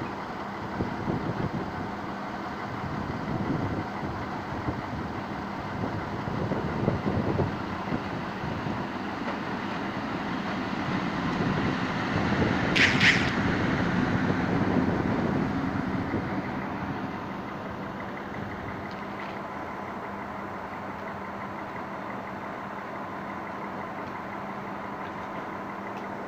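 A train pulling in alongside a station platform: a steady engine hum grows louder as it draws level, with a short high-pitched squeal about 13 seconds in. It then settles to a steady, quieter engine hum.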